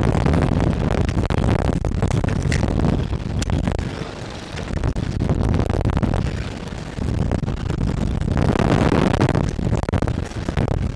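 Wind rushing over the microphone of the camera mounted on a slingshot ride's capsule as it swings and tumbles, loud and surging in waves. It eases off about four seconds in and swells again for a few seconds near the end.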